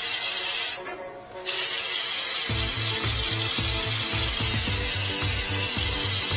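Power-driven flex shaft cable spinning inside a drain pipe as it scours out hardened epoxy. The machine cuts out for about half a second about a second in, then runs again.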